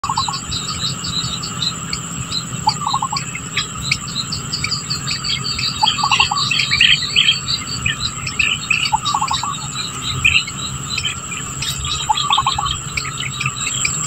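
Outdoor bird and insect chorus: many small birds chirping over a steady, high-pitched insect drone. A lower call of about four quick notes repeats about every three seconds.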